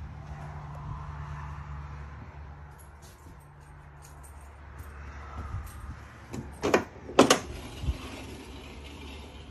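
Two sharp knocks about half a second apart from a wooden sliding interior door of a travel trailer being handled, followed by a softer thud, over a steady low hum.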